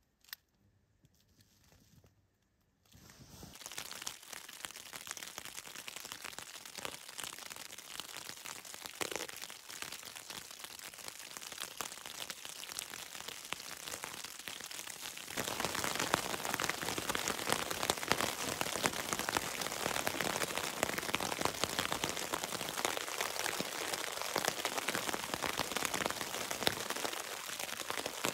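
Rain pattering on a tarp: a dense patter of fine drops that grows louder about halfway through, after a near-silent first few seconds.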